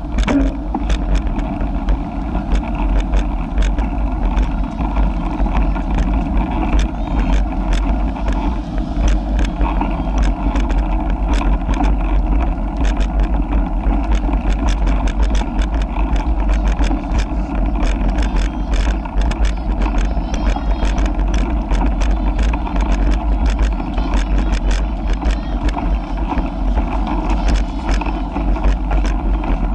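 Riding noise from a bicycle-mounted camera rolling along a concrete sidewalk: a steady low rumble of wind and tyre, with frequent small clicks and rattles.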